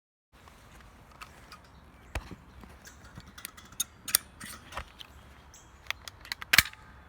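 A stapler clicking as it is fired, a series of sharp, irregularly spaced clicks, the loudest near the end.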